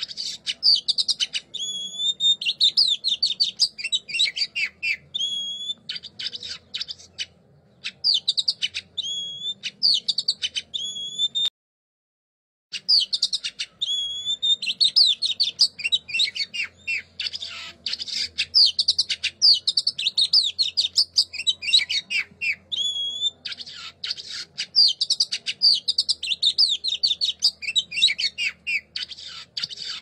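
A songbird singing a fast, varied song of chattering notes and whistled slurs in repeated phrases. It breaks off into silence for about a second a little before the middle, then carries on.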